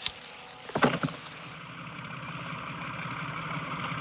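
Farm tractor engine running with an even low throb, growing gradually louder, after a short sharp knock about a second in.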